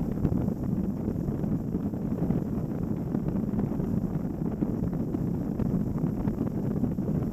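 Steady rushing and buffeting from a multirotor drone in flight: rotor wash and wind hitting the microphone of the camera slung beneath it.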